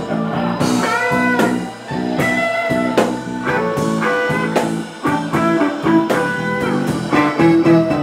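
Live blues band playing, with an electric guitar picking lead lines whose notes bend in pitch over a steady beat.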